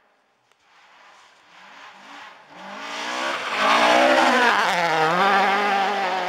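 A Mk2 Ford Escort rally car's engine at full revs, coming in from faint to loud as the car slides past on gravel about four seconds in. The pitch dips briefly near five seconds, then the car pulls away and fades.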